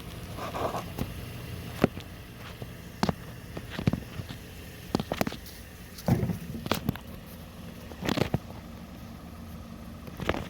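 Toyota engine idling steadily with a low hum, freshly filled with new oil. Scattered sharp clicks and knocks sound over it throughout.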